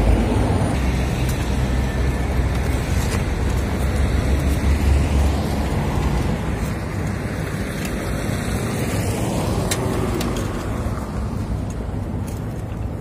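Road traffic: a heavy vehicle's low engine rumble for the first five seconds or so, fading, then another vehicle passing a little later, with a couple of faint knocks.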